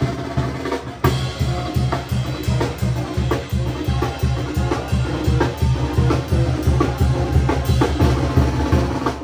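Music with a steady drum beat: bass drum and snare over a low bass line.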